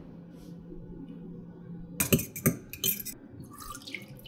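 Water poured from a small glass into a stainless steel saucepan onto a raw egg, splashing and trickling in uneven spurts, with small clinks. The pour starts about halfway in, after a faint steady hum.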